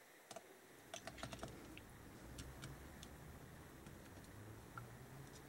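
Faint clicks and light taps of small carburetor parts being handled on the bench: a quick run of clicks about a second in, then a few scattered ticks.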